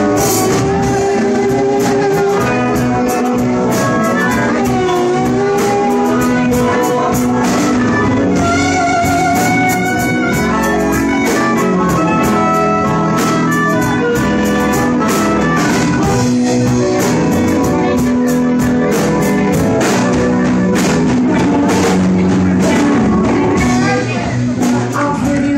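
Live electric blues band playing: electric guitars over drums with bending lead lines, and a harmonica blown into a cupped handheld microphone. The music thins out and wavers about a second before the end.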